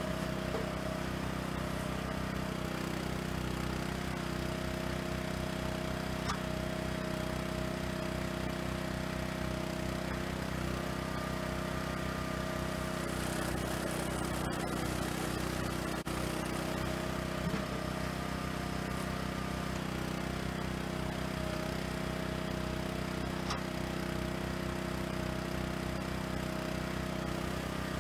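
Firewood processor running steadily under its engine. A faint whine rises and drops out at times, and there are a few light clicks.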